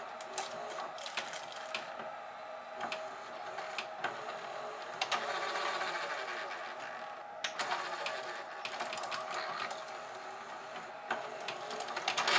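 GoVideo DVR4000 DVD-VCR's VHS tape mechanism running, its motor and gears whirring with scattered clicks, and louder for a couple of seconds midway. It is struggling to eject the cassette and keeps trying to load it instead, which the owner thinks may be the video lights upsetting its infrared tape-end sensors.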